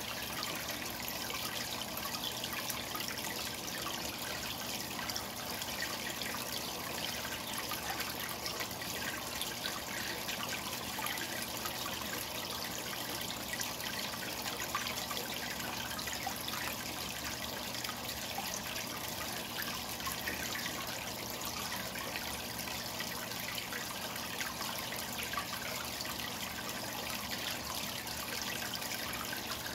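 Aquarium water bubbling and splashing at the surface as air bubbles break through it, a steady trickling churn.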